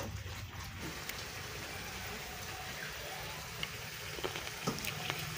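Curry gravy bubbling in an iron kadhai over a wood fire: a steady, soft, rain-like hiss and crackle, with a few light clicks in the second half.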